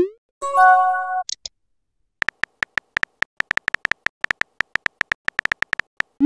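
Texting-app sound effects: a short rising swoop as a message is sent, then a brief chime of a few pitched tones. After a pause come about four seconds of quick keyboard tap clicks, around five a second, as the next message is typed.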